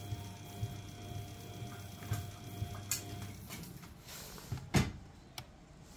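Front-loading washing machine running mid-wash: a steady motor hum with a regular light knock about twice a second. The hum and whine stop a little past halfway, and a single sharp click comes near the end.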